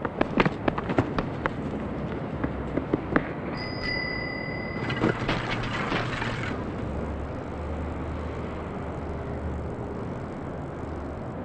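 Quick running footsteps slapping on a paved path for the first three seconds. Then a steady ringing tone sounds for about a second and a half, followed by a noisy clatter of about a second and a half as a bicycle crashes into a runner.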